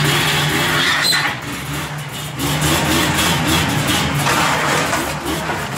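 Buran snowmobile engine running just after being started, its speed dipping and rising.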